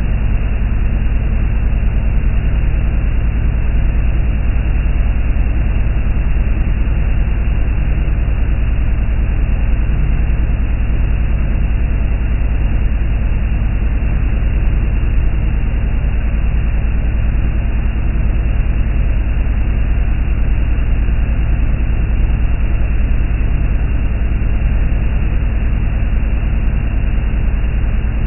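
Speedboat under way at speed: a steady engine drone with a constant hum, mixed with rushing water and wind noise, unchanging throughout.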